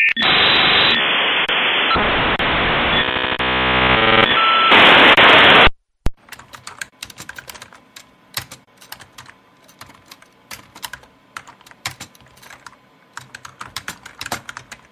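Dial-up modem connecting: a loud steady hiss with warbling tones that cuts off suddenly about six seconds in. Computer keyboard typing follows, as irregular quick clicks.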